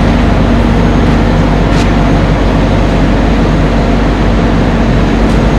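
Fire truck's diesel engine running steadily and loudly, with a constant low hum.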